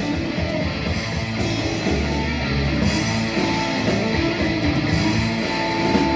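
Live rock band playing an instrumental passage between vocal lines, with electric guitar to the fore over bass and drums.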